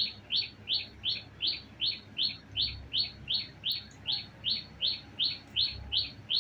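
Pet parrot calling in a fast, even series of short, high, falling squawks, about three a second.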